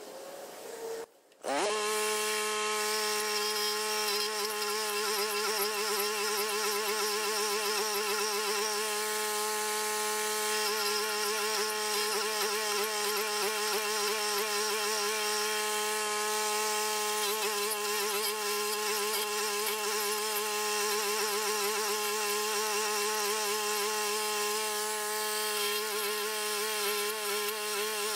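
Toro walk-behind stump grinder running steadily, its small gas engine and spinning toothed cutting wheel grinding a tree stump down to sawdust. The sound starts abruptly about a second and a half in and then holds a steady pitch, with a grainier grinding edge that rises and falls.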